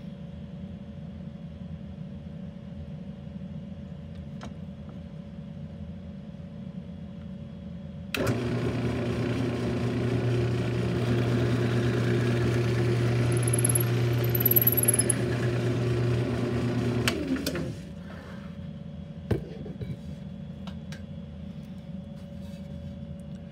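Benchtop drill press switched on about a third of the way in, its motor running steadily while a 1/4-inch bit bores through a wooden table leg into a backer board, getting louder as it cuts, then switched off and spinning down. Before it starts there is only a low steady hum, and a single click follows the run.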